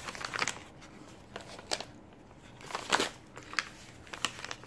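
Paper-wrapped gift packets being handled and sorted on a table: scattered rustling of paper with a few sharp ticks as they are set down, and a longer rustle about three seconds in.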